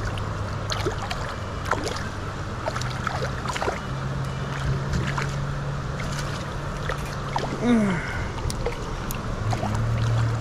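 River water running, with scattered small splashes and knocks over a steady low hum. About eight seconds in there is one short falling squeak, the loudest moment.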